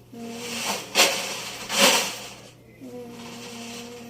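Loose metal objects clanking and sliding around inside an Electrolux washing machine's turning drum, with a sharp clank about a second in and a louder rushing swell just under two seconds in, over a steady hum.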